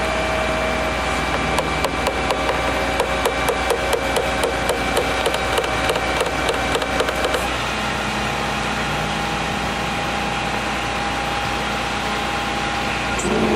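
Flatbed tow truck's engine running steadily, with a quick run of sharp clicks and creaks for about six seconds from about a second and a half in, as the front-smashed pickup is drawn onto the tilted bed. The engine note shifts when the clicking stops.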